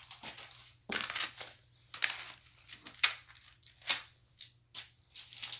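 Rustling and crinkling as things are rummaged through by hand: a series of irregular, scratchy strokes, the sharpest about three seconds in.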